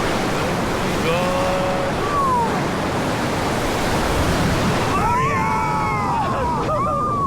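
Rushing white water of the Ayung River rapids: a loud, steady wash of water noise.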